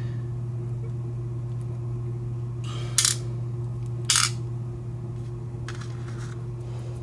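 Small metal lock parts, a key and pin tumblers of a disassembled padlock, clicking sharply twice about a second apart as they are handled, over a steady low hum.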